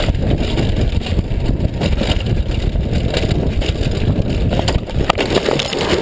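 Downhill mountain bike running fast over a rocky dirt trail: a continuous heavy rumble and rattle of tyres on stones and the bike shaking, with wind on the microphone. Near the end a few sharp knocks as the bike and rider crash into the dirt.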